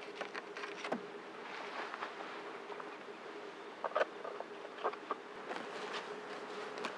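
Rustling and crackling of dry fallen leaves and clothing as a person handles a pole lashing and moves about, ending in footsteps through leaf litter. A faint steady hum runs underneath.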